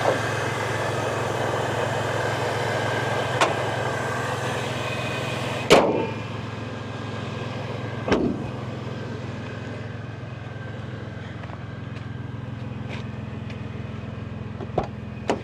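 1998 Toyota Tacoma's supercharged 3.4-litre V6 idling steadily, running again after five years standing. A few sharp knocks come over it, the loudest about six seconds in and another about two seconds later.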